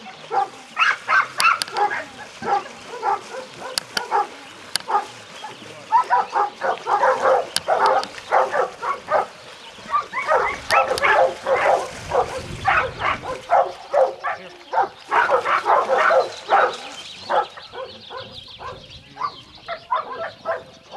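Dogs barking: a steady run of short, sharp barks several times a second, coming in dense bouts and thinning out near the end.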